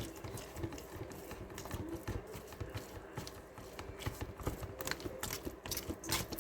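Chicken and cream-cheese filling being mixed in a bowl, the utensil clicking and knocking against the bowl in an irregular patter, several taps a second.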